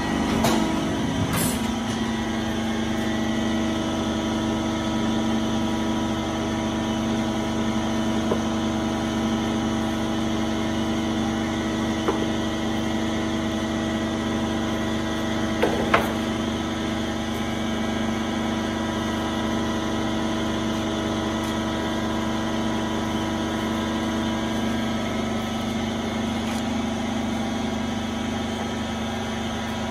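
Schön hydraulic beam cutting press with its pump motor running, a steady hum throughout. A few knocks from the press and its cutting board in the first second or two, and single knocks about 12 and 16 seconds in.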